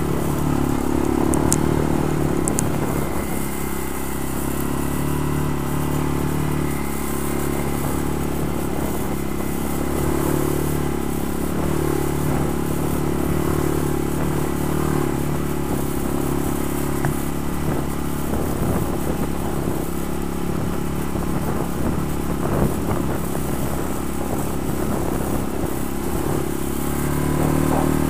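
ATV engine running steadily while riding, with small swells in throttle about two seconds in and near the end, and light rattling of the machine over the trail.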